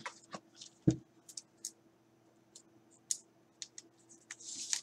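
Trading card and clear plastic card holder handled on a tabletop: scattered light clicks and scrapes, a soft thump about a second in and a short rustle near the end, over a faint steady hum.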